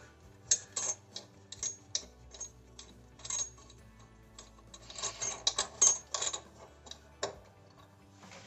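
Faucet mounting hardware and supply hoses being handled: irregular small metallic and plastic clicks and clatters in clusters, the busiest stretch about five to six seconds in.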